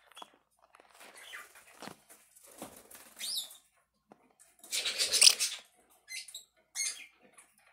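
Two small pet parrots bickering over a canvas tote bag: scratching and rustling on the fabric, with a few short squawks and a loud flurry of squawking and flapping about five seconds in.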